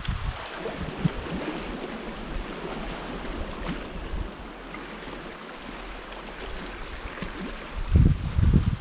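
Small sea waves washing against a rocky shore in a steady hiss, with wind buffeting the microphone in a strong low rumble near the end.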